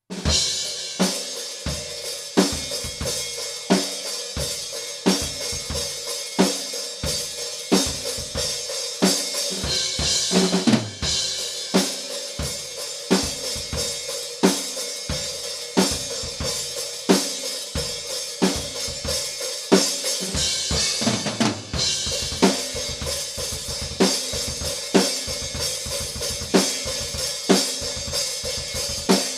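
Solo drum kit playing a metal groove: a fast bass drum played with a single foot, under snare, hi-hat and cymbals. It comes in suddenly at the start, with drum fills about ten seconds in and again around twenty seconds in.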